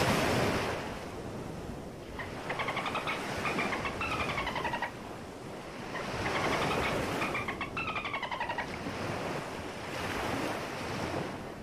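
Sea water rushing and swashing in slow swells, with two runs of high, falling, buzzy squeaks, about two and about six seconds in.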